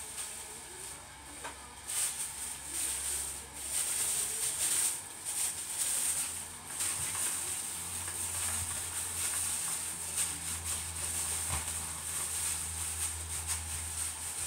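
Cooking oil heating in an empty stainless-steel wok, sizzling and crackling; the crackle picks up about two seconds in. A low steady hum joins about eight seconds in.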